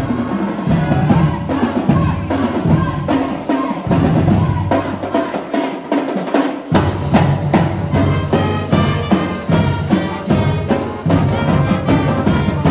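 High school marching band playing: drums beat a steady, driving rhythm under brass horns including sousaphones. The low bass notes drop out for a couple of seconds midway, then come back in.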